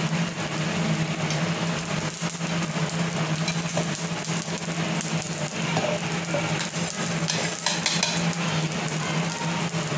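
Steel plate clinking and scraping against a stainless-steel mixer-grinder jar as chopped vegetables are tipped in, with a cluster of clinks near the end. Underneath is a steady hiss and low hum.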